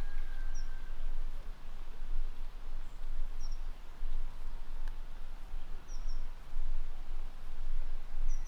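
Outdoor park ambience: a small bird gives four short, high chirps about every two and a half seconds over a low, uneven rumble.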